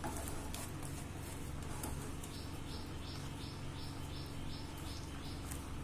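Silicone spatula stirring and scraping thick almond-and-milk halwa paste around a non-stick pan, with faint clicks over a steady low hum. About halfway through, a quick run of about eight short, high chirps.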